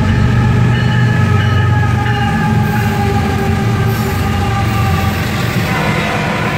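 CSX diesel freight locomotives passing close by, engines running with a deep drone and a steady high whine above it. Coal hopper cars follow, rolling past near the end as the engine drone eases.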